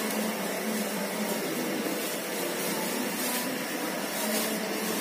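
Luchi deep-frying in hot oil in an iron kadai: a steady sizzling hiss.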